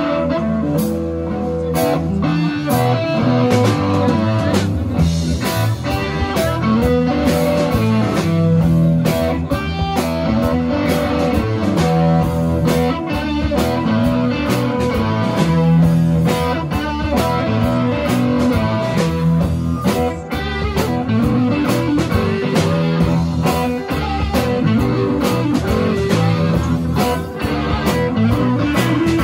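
Live electric blues band: two electric guitars playing a repeating riff over a steady drum beat, with no vocals.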